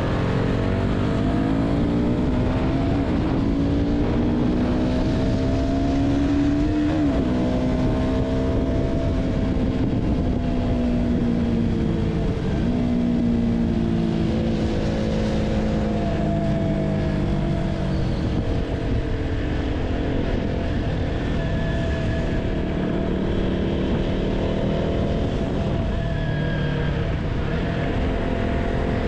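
KTM Duke 200 single-cylinder engine running under way, over steady wind and road noise. Its pitch climbs as it accelerates and drops sharply at upshifts about seven and twelve seconds in, then holds fairly steady.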